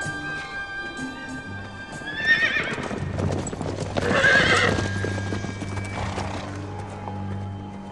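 A horse neighs twice, about two seconds in and again about four seconds in, with hooves clip-clopping in between, over background music with a steady low drone.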